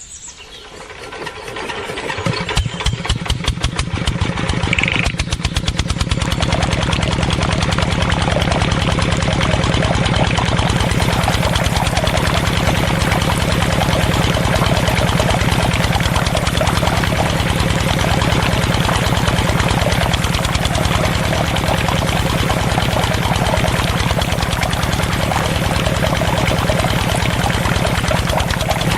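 A small engine starting up and then running steadily with a fast, even knocking rhythm. It builds up over the first few seconds, then holds at a constant speed.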